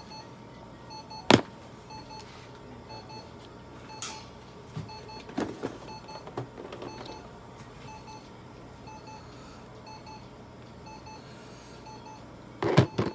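Laser therapy unit beeping faintly in a steady, repeating pattern while its probe is held to the cat's belly. There is one sharp knock about a second in and a few handling knocks and rustles near the end.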